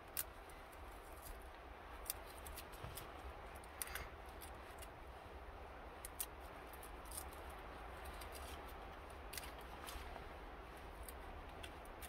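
Faint, irregular small snaps and crackles of a dry dogbane (Indian hemp) stalk worked by hand as its inner pith is broken out from the fibers.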